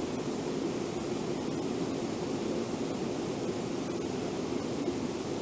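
Whitewater of Brooks Falls rushing over the falls and rapids, a steady, low rushing of water.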